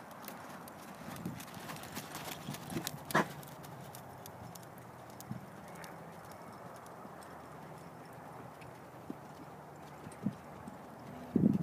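Horse hoofbeats on a sand arena: scattered thuds from a ridden horse, sparse through the middle and growing louder and closer together near the end.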